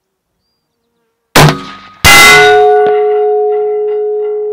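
A rifle bullet striking a hanging steel target plate: two sharp cracks about two-thirds of a second apart, the second followed by a long, slowly fading ring with several clear tones.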